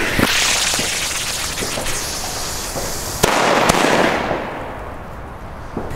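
Deto-Nation blue-star firework going off: a hissing whoosh, then a sharp bang a little over three seconds in and a second crack just after, followed by a hiss that fades away.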